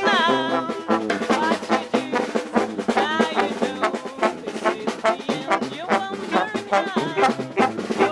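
Live funk band playing: horns playing a line over a drum kit keeping a steady beat.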